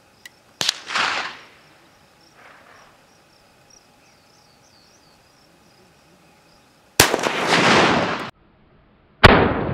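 Three shots from a WWII Arisaka bolt-action rifle: one about a second in, one near seven seconds and one just before the end. Each is followed by a long rolling echo off the surrounding hills. The second echo cuts off suddenly.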